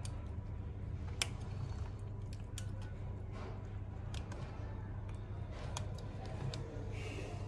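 Scattered light clicks and taps from fingers working an opened iPhone 12 Pro: parts pressed into place inside it and the display pressed down onto the frame as the phone is closed up after a speaker replacement. A steady low hum runs underneath.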